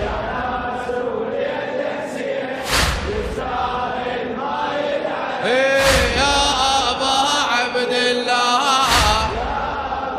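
Wordless chanted vocal backing of a Shia latmiya, several pitched voice lines wavering together and growing fuller about halfway through. A heavy thump falls about every three seconds, keeping the beat.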